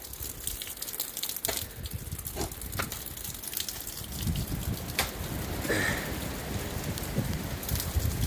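Water from an extended field drain pouring over the edge of a deck and splashing down, a steady rain-like spatter with scattered sharp drips.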